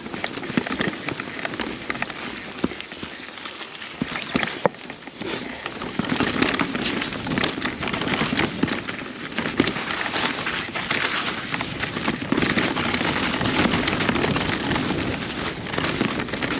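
Mountain bike riding over a wet, rocky trail: a continuous rush of tyre and trail noise with many small clicks and rattles from the bike, getting louder about six seconds in.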